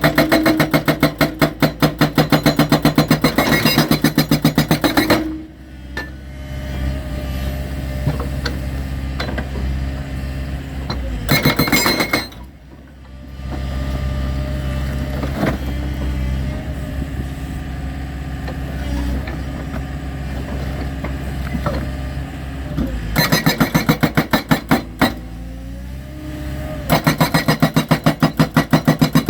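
Hydraulic rock breaker on a 22-tonne excavator hammering in bursts of rapid, evenly spaced blows, several a second, for about five seconds at the start and in two shorter bursts near the end. Between the bursts the excavator's diesel engine runs steadily.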